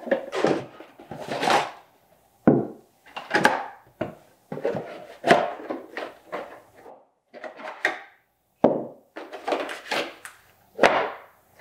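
Packaging being handled during an unboxing: cardboard and stiff black inner boxes lifted, opened and set down on a table, with paper inserts pulled out. It comes as a string of short rustles, scrapes and soft knocks, about one a second with brief pauses between.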